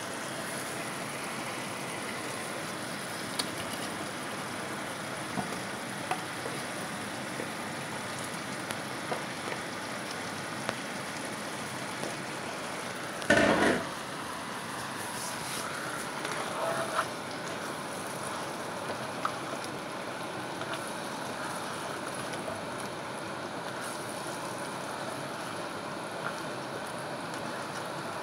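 Tomato and yogurt sauce sizzling steadily in a frying pan, with scattered light clicks and a louder clatter lasting about half a second around the middle.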